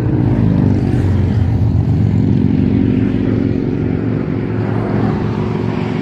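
Road traffic passing close by: a vehicle engine's steady low hum over tyre and road noise.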